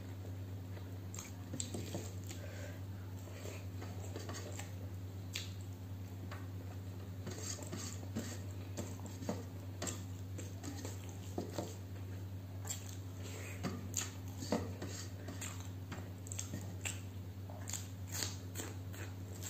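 Fingers scraping and tapping on a steel plate while mixing food by hand, with scattered small clicks and chewing, over a steady low hum.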